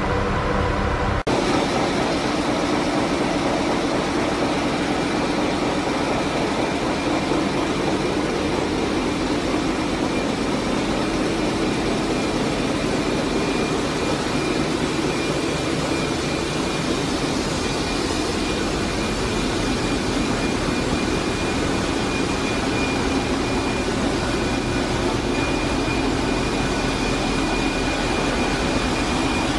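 A short stretch of music cuts off about a second in. After that comes steady, dense machinery noise with a deep rumble from the ship's engine room, where Wärtsilä 8L50DF eight-cylinder inline dual-fuel engines are running. A thin high whine runs over it in the later part.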